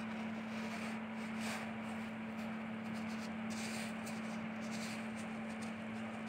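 Plastic scoop scraping and digging through clumping bentonite clay cat litter, with short gritty scrapes about a second and a half in and again from about three and a half to five seconds in. A steady hum runs underneath.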